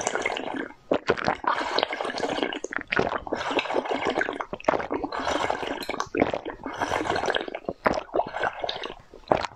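Slurping and gurgling as pink liquid is sucked out of a bird-shaped glass vessel, in bursts with short breaks between.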